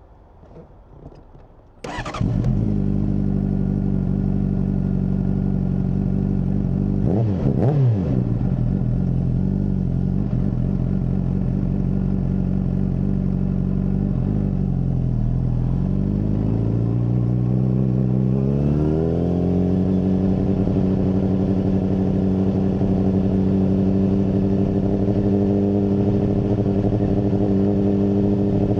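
Honda CBR600RR inline-four engine with a MIVV full exhaust starting up about two seconds in and running steadily. It gives one quick blip of the throttle, then its pitch climbs and holds steady at a higher engine speed.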